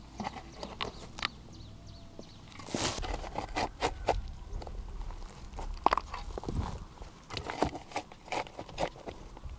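Irregular sharp taps, knocks and crunches, spaced unevenly, some louder than others.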